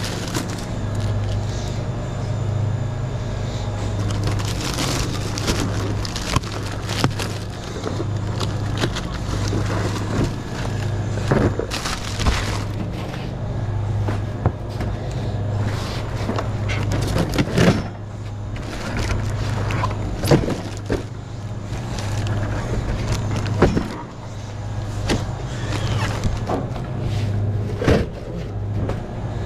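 Shrink-wrapped packs of plastic Powerade bottles being handled and stacked from a hand truck: irregular knocks and clatter with plastic wrap crinkling, over a steady low hum.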